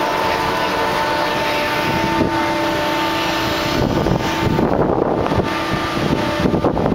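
Steady shipboard machinery hum with a steady whine on top. From about four seconds in, wind buffets the microphone.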